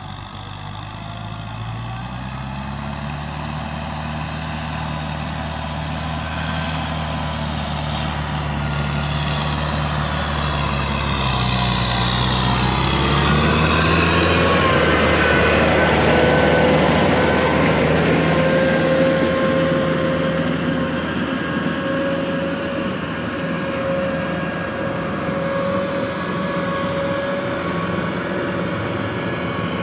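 Diesel farm tractor engine running under load as the tractor drives through deep mud. It grows louder as it comes close about halfway through, then fades as it moves away, with a steady whine coming in as it passes.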